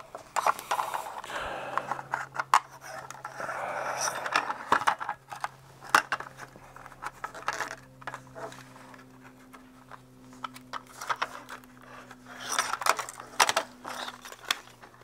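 Plastic housing of a handheld thermal camera being pried and handled: scattered sharp clicks and scraping of plastic parts, with a steady low hum underneath for most of the time.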